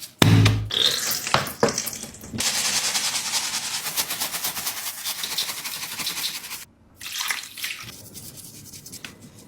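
A brush scrubbing a wet squishy toy in quick, rapid rubbing strokes, after a single low thump just after the start. The scrubbing breaks off for a moment about two-thirds of the way through and goes on more softly.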